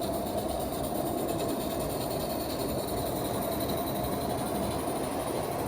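Aristo-Craft 0-4-0 live steam locomotive running under steam with a steady hissing exhaust, working under load as it hauls a heavier train up an incline.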